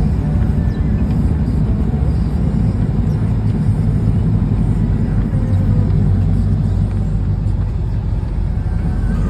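Steady low rumble of a vehicle driving on a road, heard from inside the cab: engine drone and road noise.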